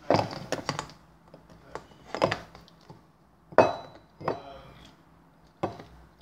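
Irregular light clicks and knocks of plastic being handled, as a toy baby bottle is pressed to a baby doll's mouth, about eight taps spread unevenly with short quiet gaps between them.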